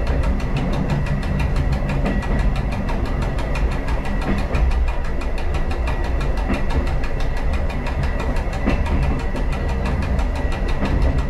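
A train's diesel engine runs steadily under way, with a constant low hum and the running noise of the train along the rails.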